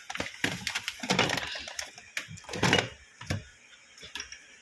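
Food containers and packets being handled on the shelves of a packed fridge: irregular rustling with light knocks and clicks, loudest about a second in and again near three seconds in.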